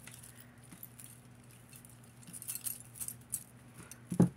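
Costume jewelry necklaces, chains and beads, clinking lightly as they are handled and untangled, with scattered small clicks in the middle over a faint steady hum. A brief, louder low knock near the end.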